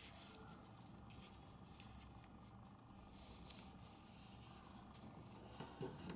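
Faint rustling and rubbing of a sheet of origami paper as it is folded and creased by hand, with short scratchy brushes of fingers on paper.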